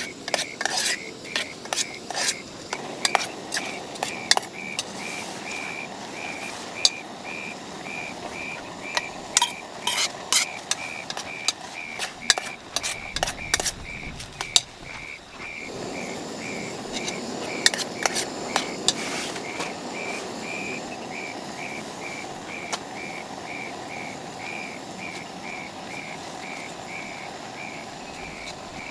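Metal utensils clinking and scraping against a pot or plate, many sharp clicks in the first twenty seconds and then fewer. A steady chirp repeats about twice a second underneath.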